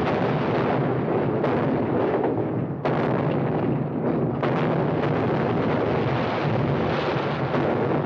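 Depth charges exploding underwater, with a continuous rushing roar of thrown-up sea water and spray falling back, broken by several sharper blasts in the first half.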